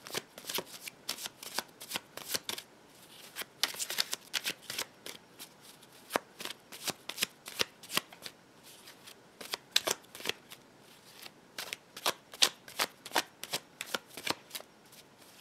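A deck of Smith-Waite tarot cards being shuffled by hand: a steady run of sharp card snaps and slaps, a few each second, with a quicker flurry about four seconds in.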